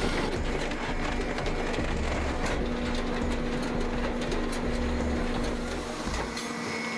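Firewood processor running: steady mechanical clatter with a low rumble and a steady hum. The rumble drops away about six seconds in.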